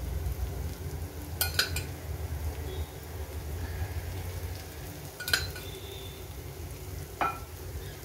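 Oil sizzling in a non-stick appe (paniyaram) pan as it is drizzled from a steel spoon around the cooking green-moong appe, with a few sharp clinks of the spoon against the pan, two close together early on, one in the middle and one near the end.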